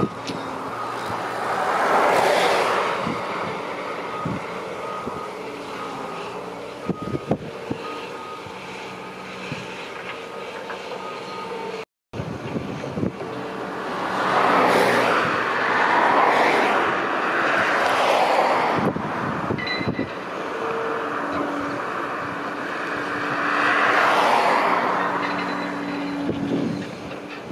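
Liebherr R 945 excavator's diesel engine and hydraulics working as it digs, rising in several long surges as the arm and bucket move under load, with a few short knocks of bucket and rock.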